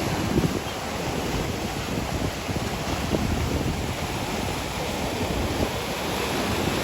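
Sea swell breaking, a steady rush of surf, with wind buffeting the microphone.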